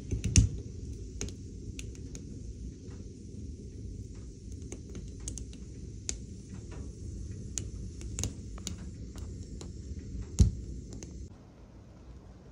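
Fire burning inside a cast-iron wood stove: a steady low rumble with scattered small crackles and pops. Two louder knocks come at the start and another about ten seconds in.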